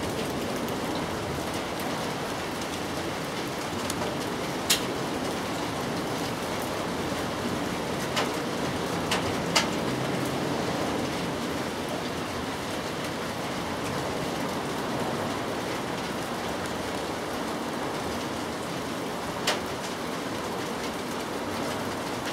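Steady rain falling and pattering on surfaces, with a few sharp taps scattered through it, mostly in the first half.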